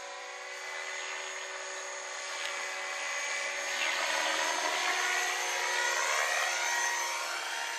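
Radio-controlled scale Airwolf helicopter in flight: a steady whine of its motor and rotor blades, growing louder about halfway through as it comes closer, its pitch sliding as it passes.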